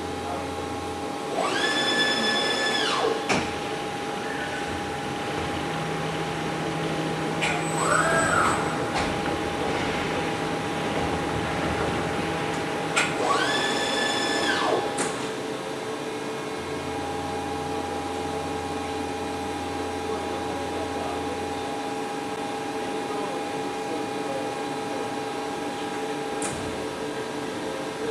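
Breton MAXIMA vertical machining centre running with a steady mechanical hum. Twice a high whine rises, holds for about a second and a half, and drops away. A shorter wavering whine comes in between.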